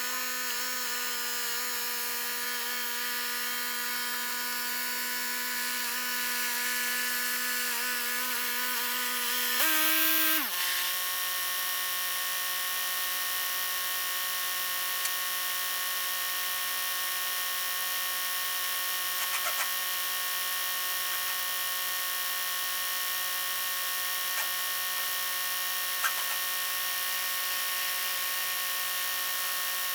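Tractor engine running at a steady speed. About ten seconds in it speeds up briefly, then settles at a lower steady speed.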